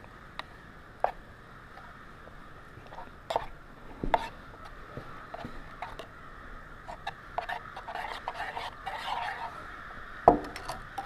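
A metal spoon stirring and scraping thick oatmeal in a steel camp cup, with scattered light clinks and taps against the cup, and a sharper tap about ten seconds in.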